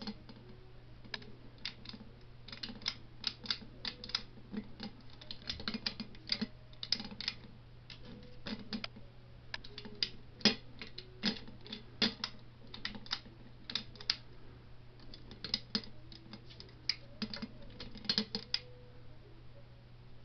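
Harbor Breeze Armitage ceiling fan running on low speed with a steady motor hum, with irregular light clicks and ticks throughout as its swinging pull chain knocks against the fan.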